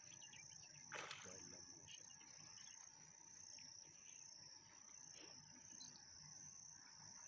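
Faint, steady, high-pitched chirring of insects, with one brief soft noise about a second in.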